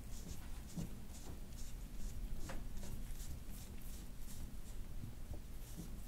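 Metal soft-tissue scraping tool stroked over the bare skin of the neck and upper back: a soft, scratchy rasp with each short stroke, about two strokes a second.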